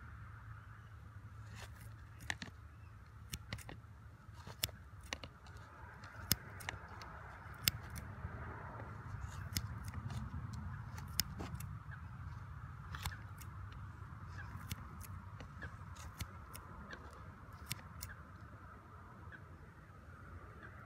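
Metal bait shears snipping worms in a plastic bait pot: a sharp click at each cut, irregular, about one a second, chopping worms for the feeder.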